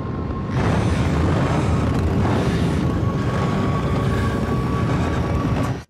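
Film-trailer sound design: a loud, low droning rumble with a thin steady high tone above it. It swells about half a second in and cuts off abruptly near the end.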